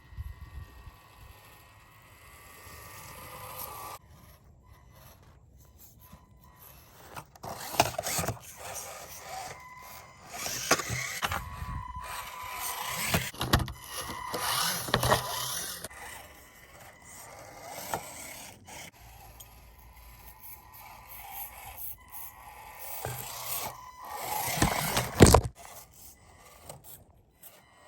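SCX24 Deadbolt micro RC crawler driving in snow: its small electric motor and geared transmission whine in spurts as the throttle goes on and off, with bursts of scraping as it works through the snow. The loudest burst comes near the end.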